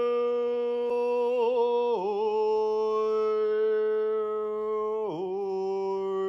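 Overtone singing: one voice holds a steady drone while a whistle-like overtone melody moves above it. The drone dips briefly twice, about two seconds in and again about five seconds in.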